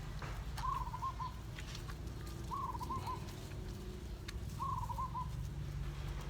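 A bird calling three times, about two seconds apart: each call a short, slightly longer note running into a few quick wavering notes, over a steady low hum.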